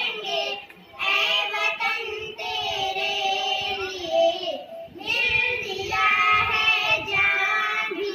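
Young girls singing a Hindi song into a microphone in long held phrases, with short breaks about a second in and again just before five seconds.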